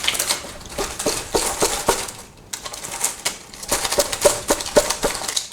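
A thin strip of PET bottle plastic being handled: an irregular run of small clicks and crackles, several a second, with a brief pause about two seconds in.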